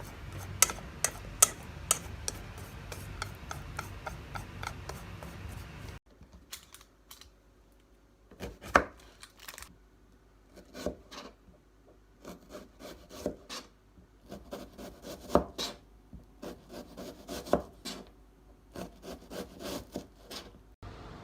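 Food being prepared by hand: irregular knocks, taps and scraping. About six seconds in the steady background hum cuts out abruptly, and only scattered knocks and scrapes remain.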